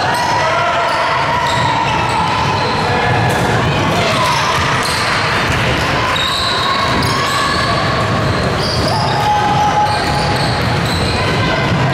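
Basketball game sounds in a gym: the ball bouncing on the court amid players' and spectators' voices, echoing in the large hall.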